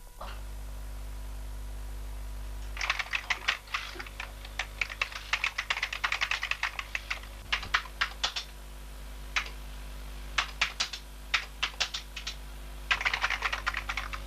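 Fast typing on a beige desktop computer keyboard: runs of keystrokes starting about three seconds in, broken by short pauses, with a dense flurry near the end. A steady low hum sits underneath.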